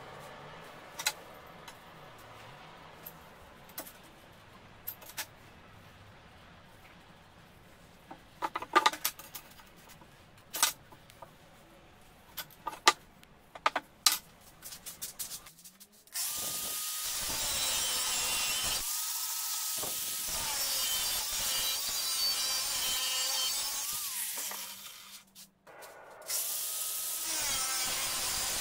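Steel bar and steel ruler knocked and clinking on a wooden workbench, then an angle grinder with a cut-off disc cutting through a steel bar, throwing sparks. The grinder runs loud and steady with a high hiss, stops briefly about 25 seconds in, then cuts again.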